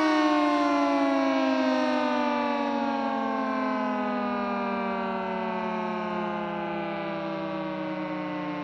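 Federal Signal 2T22A dual-tone electromechanical outdoor warning siren winding down, its pitch falling slowly and steadily as the rotor coasts to a stop.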